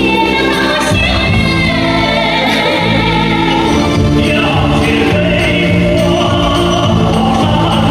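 Music: a choir singing held notes.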